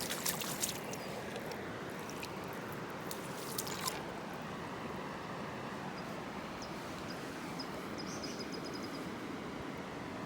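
Steady rush of a flowing stream, with a few sharp clicks in the first four seconds.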